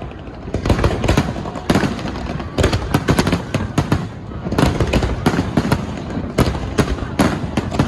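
Aerial fireworks bursting: clusters of sharp bangs and crackles, with a new cluster about every second over a continuous low rumble.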